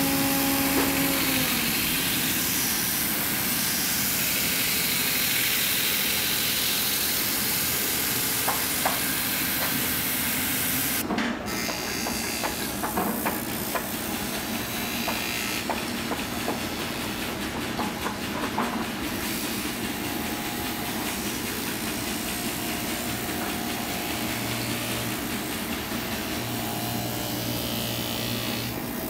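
Workshop machinery running with a steady hissing whir, broken by a sudden change in the sound about eleven seconds in, with a few faint clicks afterwards.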